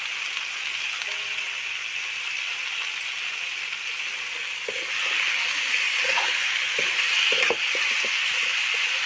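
Jackfruit, potato and pea curry sizzling in hot oil in a pan, getting louder about five seconds in, with a few light knocks of a spoon or spatula against the pan as it is stirred.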